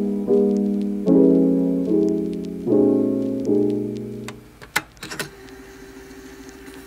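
Background piano music: chords struck at a slow, even pace, each ringing and fading. About four seconds in the chords stop, leaving a faint held note and a few sharp clicks.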